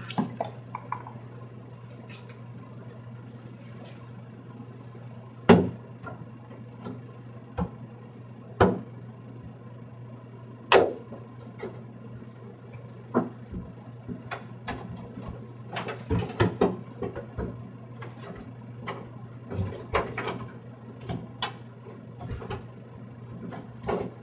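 Irregular knocks and thumps against a plastic shower-stall wall as a suction-cup footrest is pressed on and stood on, the loudest about five and eleven seconds in and a busier run of bumps around sixteen seconds, over a steady low hum.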